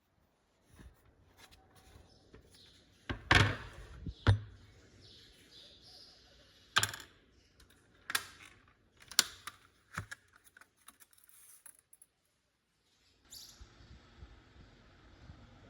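Scattered sharp clicks and knocks at irregular intervals over a quiet background. The sound drops out briefly near the end, then a different steady background comes in.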